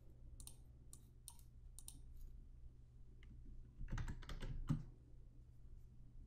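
Faint typing on a computer keyboard: a few separate key clicks in the first couple of seconds, then a quicker, louder run of keystrokes about four seconds in as a password is entered.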